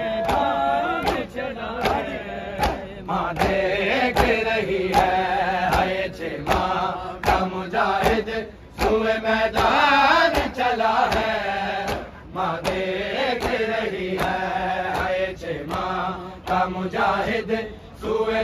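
Men chanting an Urdu noha, a Muharram lament, in a strong melodic voice, over rhythmic chest-beating (matam) strikes at roughly two a second.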